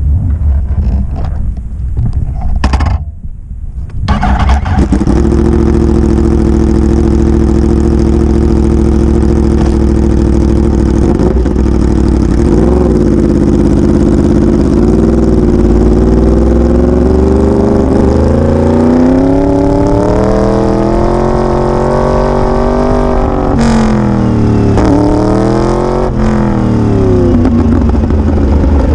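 Yamaha R1 sportbike's inline-four engine running loud, steady at first, then rising in pitch and swinging up and down as the throttle is worked. A single sharp click comes near the end.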